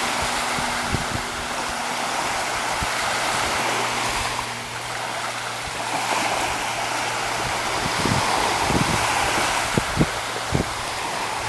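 Sea surf washing onto the beach in slow swells, with wind buffeting the microphone in low thumps during the last few seconds.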